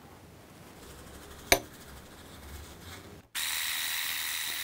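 Handheld electric mixer with a whisk attachment whirring steadily on low speed in a glass bowl of instant coffee, water and sugar. It starts abruptly about three seconds in, after a quiet stretch broken by a single sharp tap.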